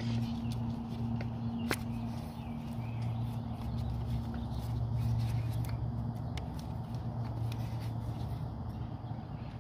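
Light plastic clicks and rubbing as an ignition coil is twisted and pulled out of its spark-plug well, the sharpest click about two seconds in. A steady low hum runs underneath.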